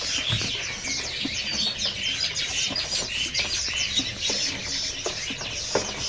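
Many caged songbirds chirping and calling at once: a dense, steady chorus of short high notes, with a couple of light knocks.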